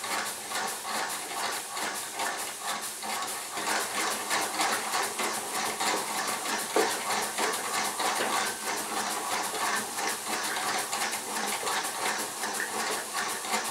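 Small model steam engine running on steam from a gas-heated boiler: a fast, even run of exhaust puffs over a steady hiss. It is only just managing to turn the belt-driven Meccano model it drives.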